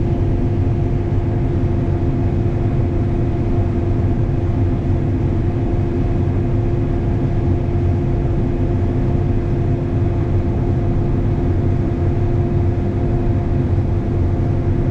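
Combine harvester running steadily while cutting corn, heard from inside the cab: an unbroken low drone with a constant hum.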